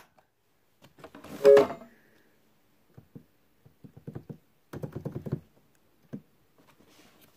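Knocks and clicks from hands working an electronic keyboard's panel switches and casing. There is one loud knock with a brief two-tone sound about a second and a half in, and a run of rapid clattering taps near five seconds.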